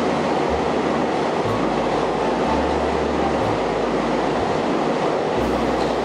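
EMU3000 electric multiple-unit express train running through the station without stopping: a steady, loud rush of wheels on rails as the cars go by.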